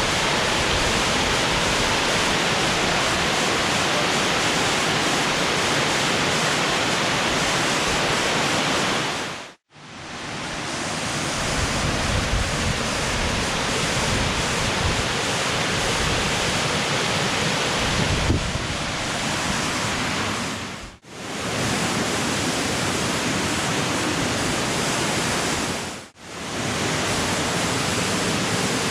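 Steady rushing of a multi-tiered jungle waterfall close by, with some wind rumble on the microphone in the middle part. It cuts out to silence briefly three times, where separate shots are joined.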